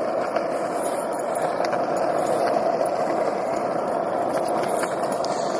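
Skateboard wheels rolling steadily over concrete, a continuous rumble with a few faint ticks.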